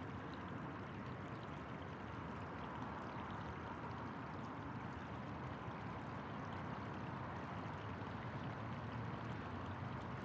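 Steady, even rushing ambience with no distinct events: an outdoor background wash of the kind laid under a riverside city shot.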